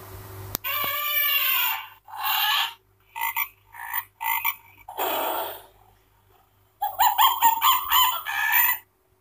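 A children's sound book's electronic sound module playing its recorded jungle animal calls one after another (tiger roar, elephant trumpet, monkey chatter, frog ribbit, macaw squawk) through its small built-in speaker, over a faint steady electronic hum. The calls come in about six separate bursts, ending with a quick run of repeated calls near the end.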